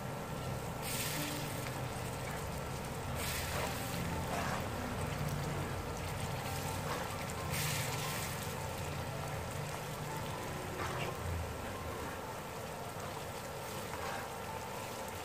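Sa tế chili oil (chopped chili, lemongrass, shallot and garlic in oil) sizzling steadily in a nonstick frying pan as it is stirred with a metal spoon, with a few louder swishes of about a second each from the stirring.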